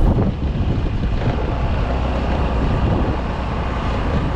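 Wind rushing over the microphone and the running noise of a Yamaha RayZR 125 scooter being ridden, with a single thump right at the start.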